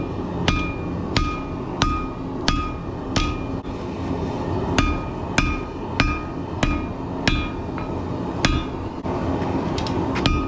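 Hand hammer striking hot rebar on an anvil, about fifteen blows at an uneven pace of one to two a second, each with a short metallic ring, over a steady low rumble.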